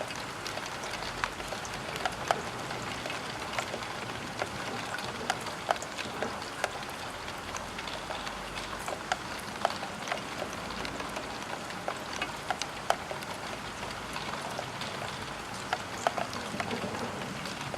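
Rain falling on a roof window: a steady hiss of rain with many irregular, distinct taps of individual drops striking the glass.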